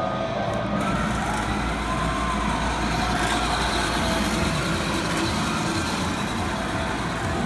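Steady arcade din: a wash of game-machine noise and background crowd, with a low rumble underneath for the first few seconds.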